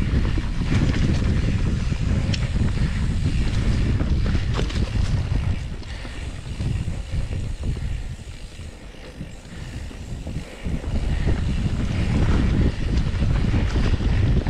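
Wind buffeting the microphone while riding a mountain bike over a leaf-covered dirt trail, mixed with tyre rumble and a few short knocks from the bike. The rumble eases off for a few seconds midway, then returns.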